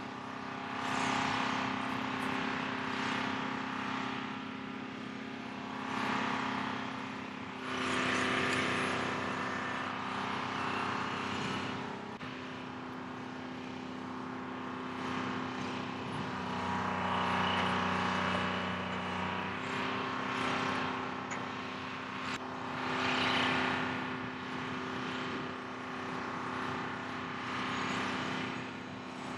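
Diesel engine of a rough-terrain mobile crane running steadily while it hoists a heavy steel piece, its speed rising and falling in several swells as the lift is worked.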